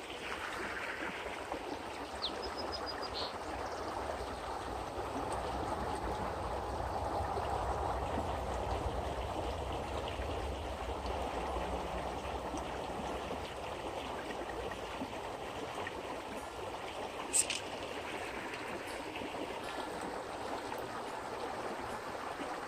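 Small creek water running steadily. A faint short high chirp comes a couple of seconds in, and one brief sharp click near the end.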